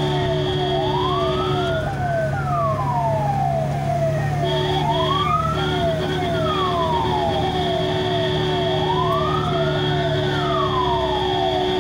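Ambulance's electronic siren sounding, heard from the ambulance itself: a slow wail rising and falling about every four seconds over a rapid repeating rising chirp, with a steady tone that drops out for a couple of seconds near the start.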